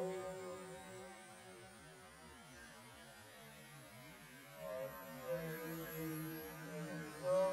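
Electric 1:10 RC touring cars' brushless motors whining, the pitch rising and falling with the throttle. The sound fades as the cars run on the far side of the track and swells again, peaking just before the end as a car comes near.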